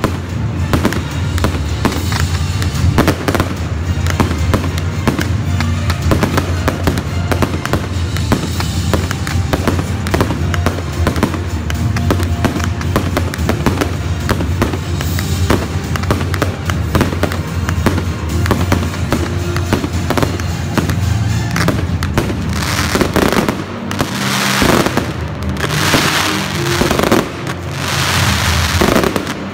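Aerial fireworks bursting in rapid succession with crackle, over music with a steady low bass line. From about 22 seconds in, the crackling swells into louder waves every second or two.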